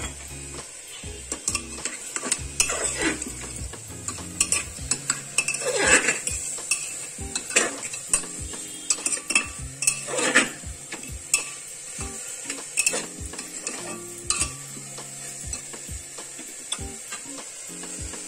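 A metal spoon stirring chicken and vegetables in an aluminium pressure cooker, scraping and clinking against the pot at an irregular pace, over a steady sizzle. The loudest scrapes come about 6 and 10 seconds in.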